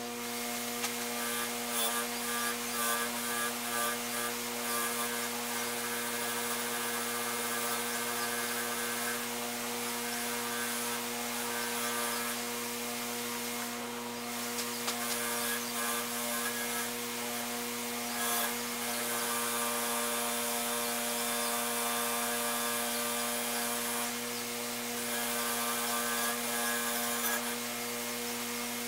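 Bench grinder fitted with a buffing wheel, running with a steady motor hum. Over the hum is a scratchy rush that swells and fades several times as metal work is held against the wheel.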